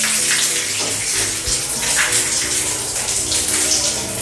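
Water running steadily from a bathroom wall spout, turned on again after the geyser was refitted.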